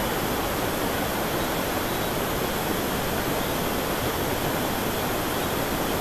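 Steady rushing noise that holds even throughout, the kind made by rain, running water or wind.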